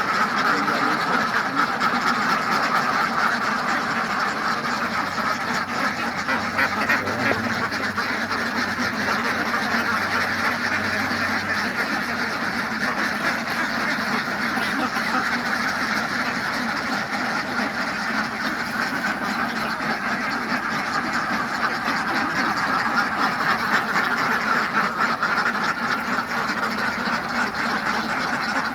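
A flock of farm ducks quacking continuously, many calls overlapping without a break.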